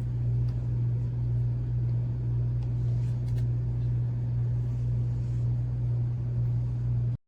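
A steady low hum with a rumble over it, holding an even level, then cutting off abruptly near the end.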